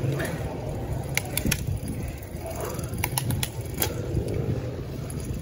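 Gravel bike rolling on paved road at night: a steady low rumble of wind and road noise on the bike-mounted microphone, with a few sharp rattling clicks from the bike scattered through the middle.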